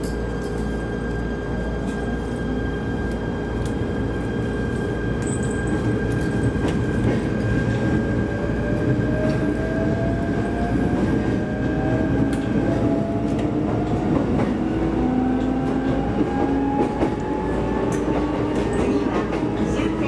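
Shinano Railway SR1 series electric train accelerating, heard from inside the car: a steady rumble of wheels on rails, with the traction motor whine rising slowly in pitch from about seven seconds in as the train gathers speed.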